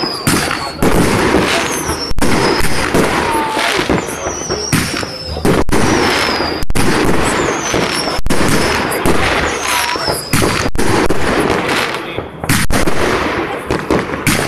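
Fireworks display: aerial shells bursting with sharp bangs every second or so over a continuous crackle, with several high whistles falling in pitch.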